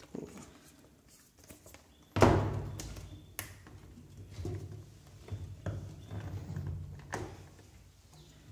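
Cardboard headphone box being handled and opened: one loud thump about two seconds in, then scattered taps, clicks and rustles of the packaging.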